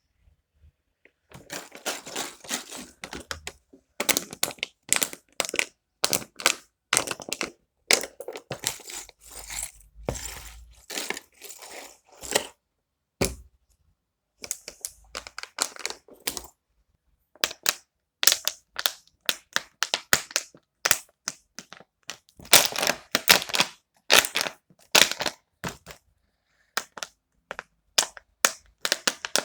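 Irregular crackling and clicking from things being handled, in quick dense runs that stop dead several times in short silent gaps.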